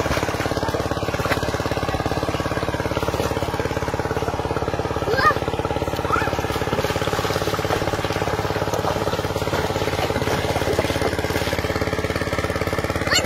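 A small engine running steadily at an even speed, with a fast, regular pulse that does not change.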